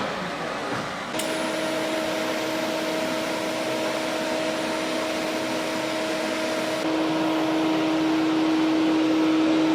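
Electric arc welding on the clutch-pack hubs of a Mazda RX-7 differential, welding them to the case to lock the diff. It is a steady buzzing hiss with a low hum, starting abruptly about a second in.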